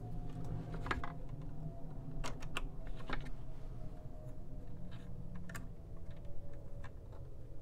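Light, irregular clicks and taps as tweezers and fingers work fuel tubing through a hole in a balsa model plane's fuselage, over a faint steady hum.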